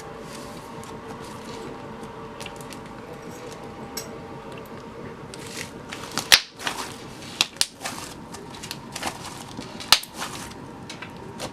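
Butter slime being kneaded and pressed by hand, giving scattered sharp clicks and crackly pops that come thick from about halfway through.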